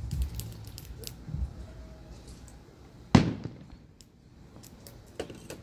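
Fireworks going off: one loud bang about three seconds in with a rumbling echo trailing after it, and a fainter bang near the end.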